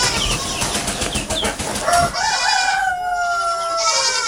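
Chickens clucking, then a rooster crowing: one long call from about two seconds in, sagging slightly in pitch toward the end.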